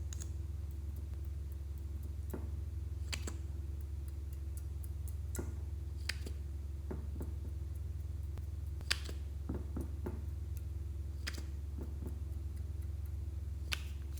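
Clear slime being worked by hand, giving scattered sharp little clicks and pops at irregular intervals over a steady low hum.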